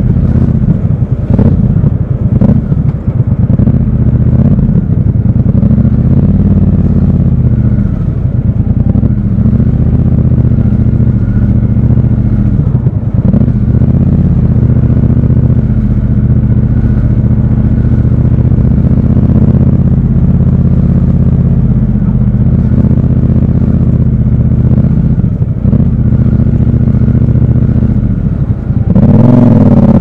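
Triumph 1200 cc parallel-twin motorcycle engine running steadily at low revs, its note dipping and swelling as the throttle is worked at low speed. About a second before the end it revs up and rises in pitch as the bike accelerates.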